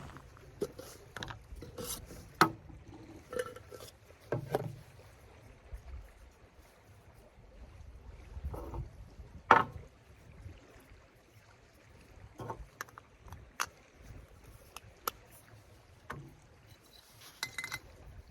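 Objects being handled by hand: irregular knocks, clicks and rubbing, with two sharper knocks about two and a half and nine and a half seconds in.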